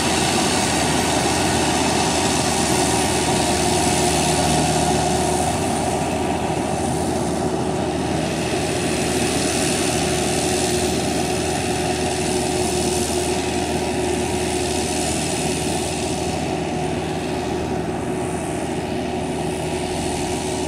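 Kubota diesel engine of a homemade crawler rotary tiller running steadily under working load while the machine tills a muddy rice field. The running sound is even and smooth.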